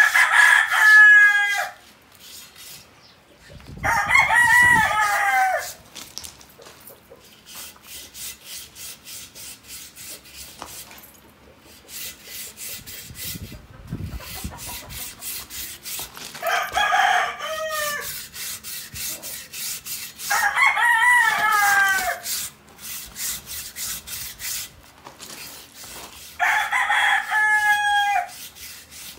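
A rooster crowing five times, each crow about a second and a half long. Between the crows there is a faint, steady, rhythmic rubbing.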